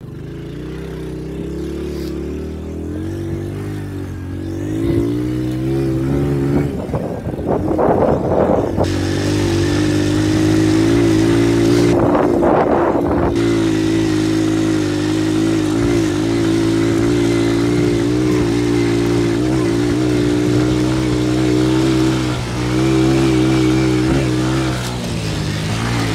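Small Honda motorcycle engine running steadily under way on a sandy track, pulling harder about five and ten seconds in. Two brief bursts of rushing noise sound over it, about seven and twelve seconds in.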